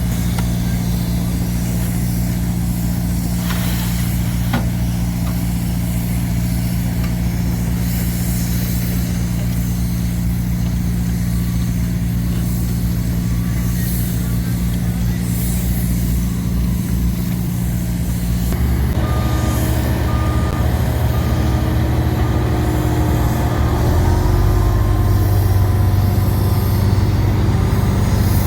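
Heavy diesel construction machinery running steadily. About two-thirds of the way in, the engine note changes and a reversing beeper starts pulsing, and near the end the engine gets louder under load.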